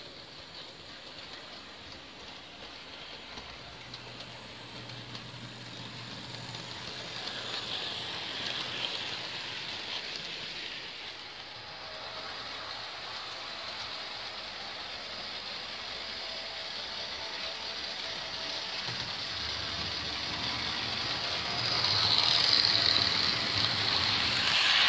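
Mehano HO-scale 2-6-0 Camelback model steam locomotive and its cars running on the track: a steady rattling whir of the small motor and the wheels on the rails. It grows louder as the train approaches and is loudest near the end, as it passes close by.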